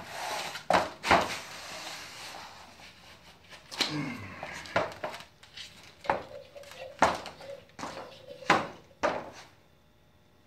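A metal can of shower pan liner adhesive being handled, giving a series of sharp knocks and clinks, about eight in nine seconds, some with a brief metallic ring, with light scraping between them.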